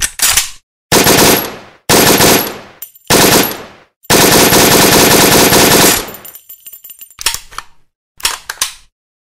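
AK-47 automatic gunfire sound effect. There are three bursts of about a second each, then one sustained burst of about two seconds, then two short bursts near the end.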